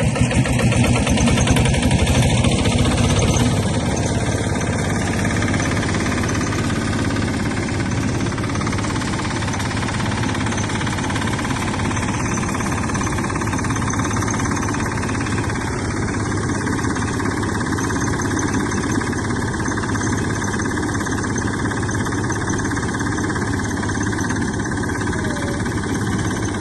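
Engine running steadily, a little louder for the first few seconds and then holding an even note.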